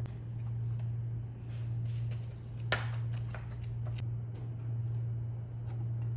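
Steady low hum with a few soft taps and clicks over it, and one sharper click about two and a half seconds in.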